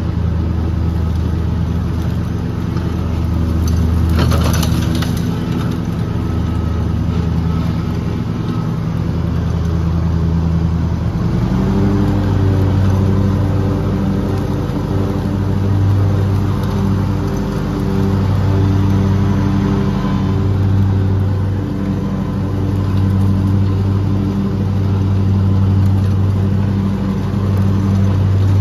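Lawn mower engine running steadily as it crosses the lawn, its note stepping up slightly and growing stronger about eleven seconds in.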